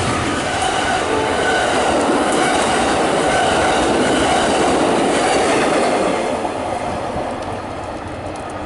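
Amtrak Superliner double-deck passenger cars rolling past close by, wheels running on the rails, with a steady loud rush of train noise that fades from about six seconds in as the last car goes by.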